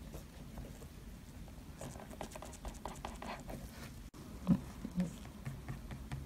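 Faint light tapping and scratching of small painting tools being handled, over a low steady hum, with two soft low thumps a little after the middle.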